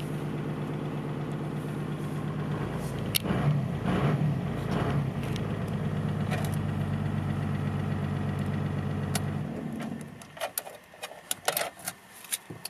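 Toyota 12H-T 4-litre inline-six turbo diesel idling steadily, briefly louder a few seconds in. It stops about ten seconds in, leaving a few sharp clicks.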